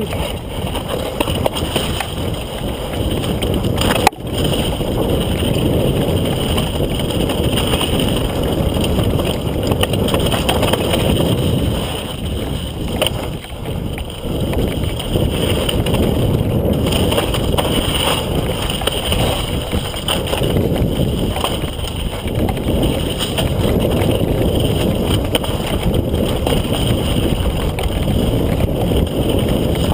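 Mountain bike riding fast down a rough dirt and rock trail: wind rushing over the camera's microphone and the rumble and rattle of the bike over the ground, with one sharp knock about four seconds in.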